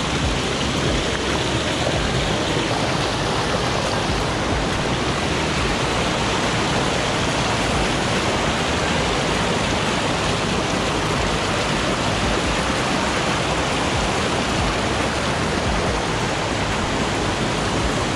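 Whitewater of a mountain stream cascading over boulders, heard close up as a steady, even rush.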